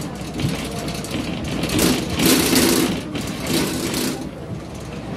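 Engine of a heavy vehicle running on the move, heard from inside the cab, with a steady low rumble. Several short bursts of noise come through it about two seconds in and again between three and four seconds in.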